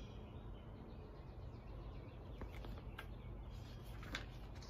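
Faint birds chirping in the background over a low, steady outdoor hum, with a short rustle about four seconds in as a picture book's page is turned.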